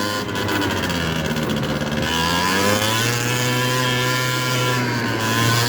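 70cc big-bore two-stroke scooter engine running while under way, its pitch dipping slightly at first and then rising about halfway through as the revs pick up and hold.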